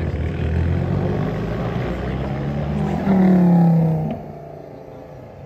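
A performance car engine revving hard under acceleration, loudest for about a second around three seconds in with a slightly falling note, then dropping away quickly just after four seconds.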